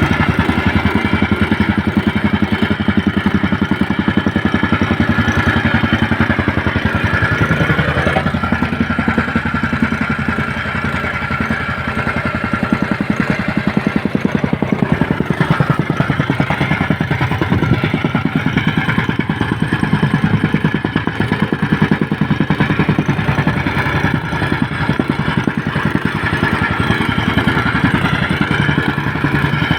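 A small engine running steadily, with a fast, even firing pulse.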